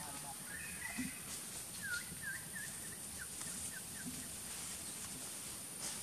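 Runs of short, quick animal chirps, several in a row, over a steady high hiss, with a couple of soft low knocks.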